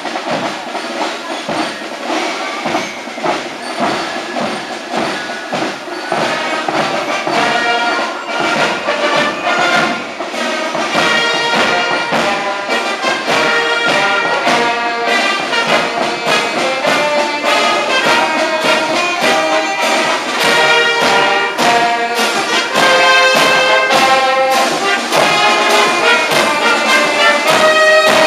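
Marching brass band with trombones, trumpets, tuba and bass drum playing to a steady beat. The music grows louder as the band approaches.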